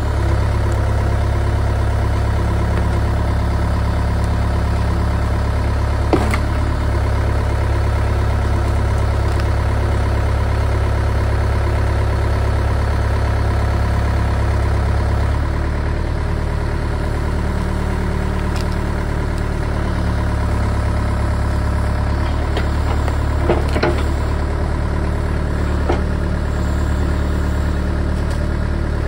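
Cat 307 excavator's diesel engine running steadily under hydraulic load while the arm lifts a large tree stump out of the ground and lowers it again. The engine note drops slightly about halfway through, and a few sharp knocks come through over the hum.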